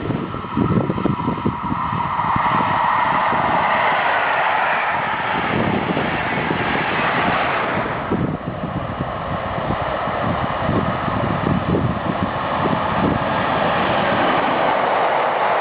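A train running past on the line, its wheels rumbling and knocking irregularly over the rails under a steady rushing noise.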